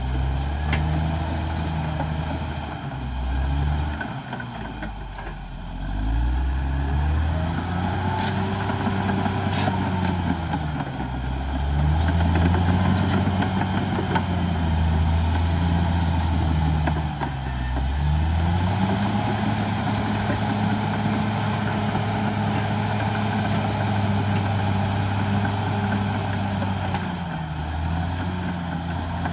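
CAT D6R XL bulldozer's diesel engine working under load, its pitch rising and falling several times as the throttle and load change, then holding higher and steadier in the second half. A faint high whine follows the engine pitch, and a few sharp knocks come through.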